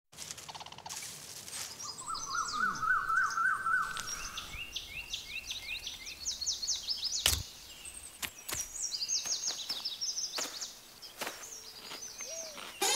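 Birds chirping: repeated quick series of high chirps, with a lower warbling trill in the first few seconds. A few sharp clicks come through, the loudest about seven seconds in.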